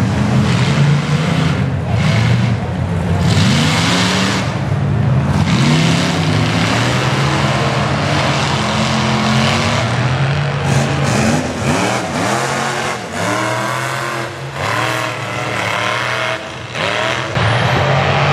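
A mud-bog pickup truck's engine running hard under heavy throttle as it churns through deep mud. The engine's pitch climbs and falls several times with the revs.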